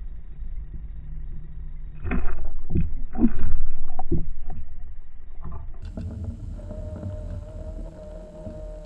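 Underwater recording: a steady low rumble, with a cluster of heavy knocks and thuds from about two to four and a half seconds in as a pike strikes and seizes a jointed swimbait lure. From about six seconds a steady humming tone joins the rumble.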